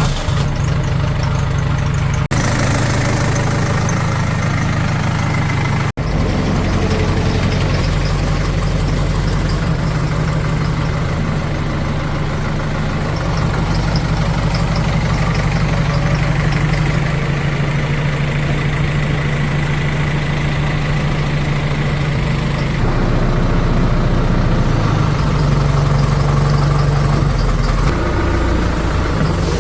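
Diesel engine of heavy farm and earthmoving machinery running steadily at a low, even pitch. There are brief breaks about two and six seconds in, and it is a little louder near the end.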